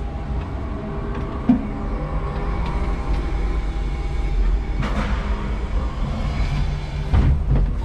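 5-ton electric forklift truck running under load, a steady low drone of its drive and hydraulics with rattles from the cab and mast. A few sharp knocks come through, the clearest about a second and a half in and near the end.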